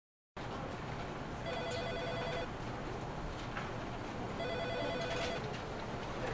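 A telephone ringing twice with a trilling electronic ring, each ring about a second long, over faint room background.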